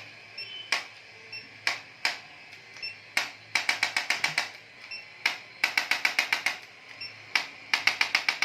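Chiropractic impulse adjusting gun firing against the body: single sharp clicks, then three quick runs of clicks at about seven a second, each lasting about a second.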